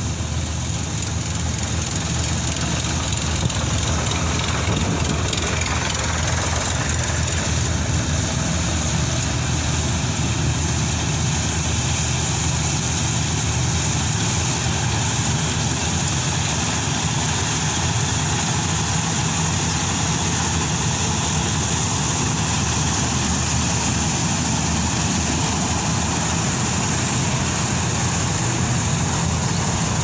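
Kartar 4000 combine harvester running steadily while cutting wheat: an even, low engine drone with a steady hiss of the working machinery above it.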